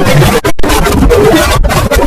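Loud, harsh, distorted music, with a brief drop-out about half a second in.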